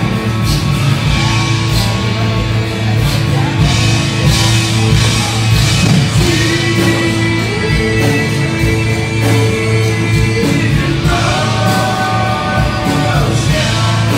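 Live rock band playing a song in full, with a steady drum beat, bass and a singing voice over it.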